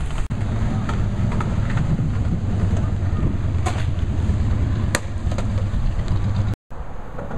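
Skateboard wheels rolling over rough asphalt, a steady low rumble, with a couple of sharp clicks about four and five seconds in.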